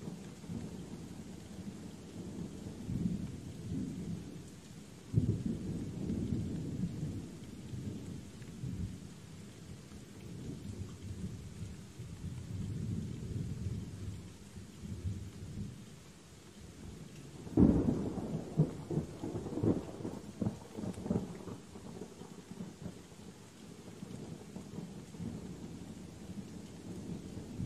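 Thunder rolling over steady rain: a continual low rumble with a sudden clap about five seconds in, and the loudest crack about two-thirds of the way through, rumbling on for a few seconds after it.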